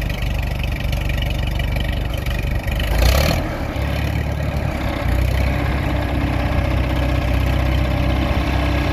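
Farmall tractor engine idling, with a short louder burst about three seconds in before it settles into a steadier run.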